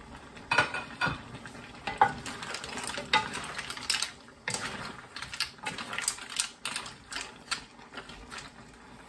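Wooden spatula stirring and tossing mussels in the shell with sliced leeks in a wok, giving irregular knocks and scrapes against the pan over a light sizzle.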